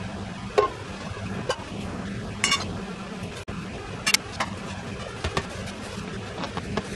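Handling a small metal tin of mink oil: scattered sharp clinks and knocks as the tin is opened and set down and the bellows is picked up, with a quick rattle of clicks about two and a half seconds in. A steady low hum underlies it all.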